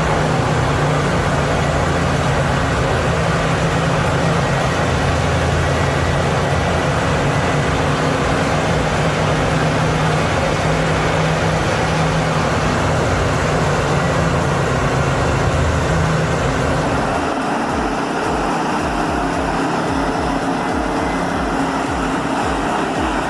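Morbark 50/48X's large engine running steadily at high power, a loud drone under a wide even machine noise. About seventeen seconds in, the drone drops away and a rougher, pulsing machine noise takes over.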